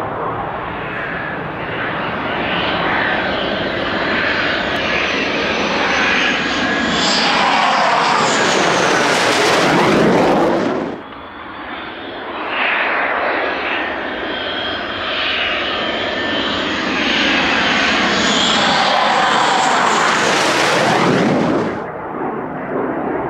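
Military fighter jets passing low overhead, twice: the engine noise swells to a loud peak with a sweeping rush as the jet goes over, drops sharply about eleven seconds in, then builds to a second peak and falls away near the end.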